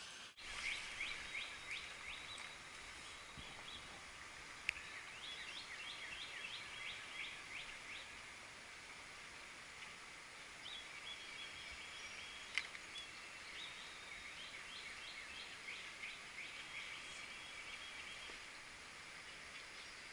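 Faint outdoor riverside ambience: songbirds chirping in repeated quick trills over a steady low hiss, with two sharp clicks, one about five seconds in and one near the middle.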